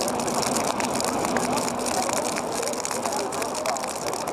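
Steady outdoor background noise with faint, distant voices calling out now and then.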